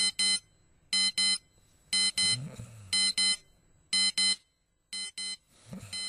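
Small battery alarm clock going off with electronic beeps in pairs of two short beeps, about one pair a second. The beeps drop in loudness about five seconds in.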